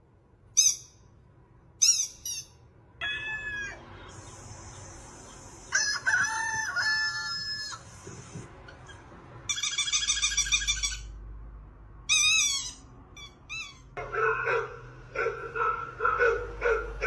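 A string of different bird-like calls and squeaks, one after another: short chirps at first, longer pitched calls in the middle, then a fast repeated patter near the end.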